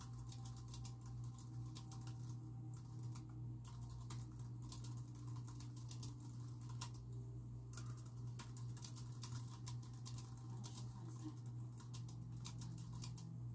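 Typing on a computer keyboard: quick runs of keystroke clicks with short pauses between them, over a steady low hum.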